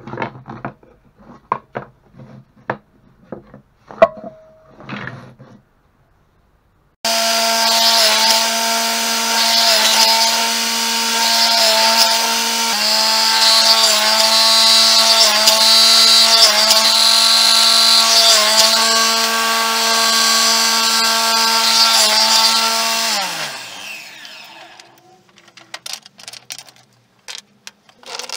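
Table saw running and crosscutting oak strips into short domino blocks on a crosscut sled; its pitch dips briefly about once a second as the blade takes each cut, then it is switched off and winds down. Before it starts, loose wooden strips click and clatter as they are handled.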